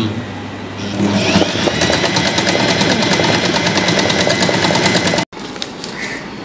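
Usha Janome Excella electric sewing machine running fast, stitching cloth held in an embroidery hoop. The motor whine rises about a second in, then the needle stitches at a rapid, even rate. It cuts off suddenly after about five seconds, and quieter sounds follow.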